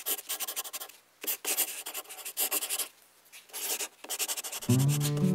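Scratchy rubbing and scraping from a ballpoint pen being slid out of a leather pen case and handled over paper, in uneven bursts with short pauses. Music comes in near the end.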